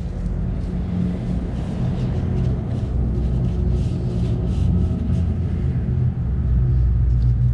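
A steady low rumble, with faint rustling of a cloth rag wiping around the motorcycle's oil drain opening.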